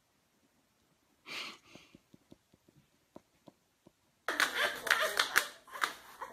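Mostly quiet at first, with one short breathy huff about a second in and a few soft ticks. Then suddenly a loud run of rapid, irregular clicks and taps: a pet's claws and a small object skittering on a hard tile floor.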